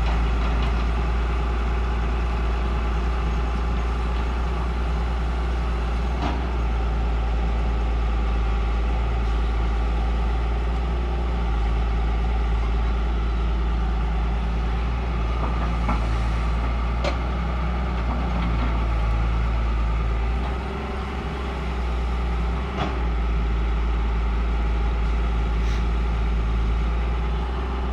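Heavy diesel earth-moving machinery running steadily with a deep, continuous rumble, and a few sharp metallic knocks now and then.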